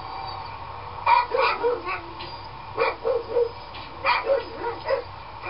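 A dog barking in three quick runs of about four short barks each, roughly a second and a half apart.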